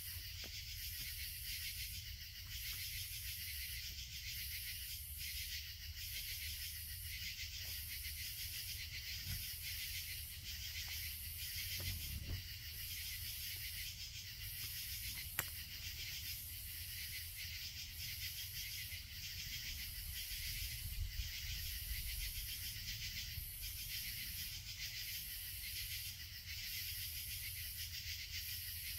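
Night insect chorus: a dense, shrill high-pitched drone that pulses about once every second and a half. A low rumble runs beneath it, and a single sharp click comes about halfway through.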